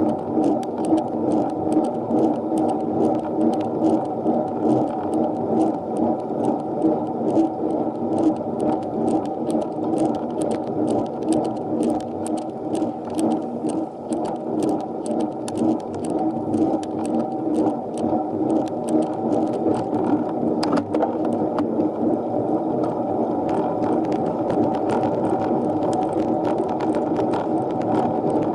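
Piccolo Racer minivelo bicycle being ridden uphill at hard time-trial effort: a steady whir and rattle from the moving bike with many small clicks, swelling and fading about once a second, evening out near the end.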